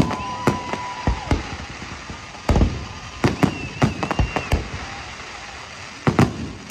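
Fireworks display: sharp bangs of bursting shells in irregular runs, the loudest about two and a half seconds in, with a quick cluster in the middle and two more near the end. A steady whistle sounds through the first second, and a higher whistle sounds during the middle cluster.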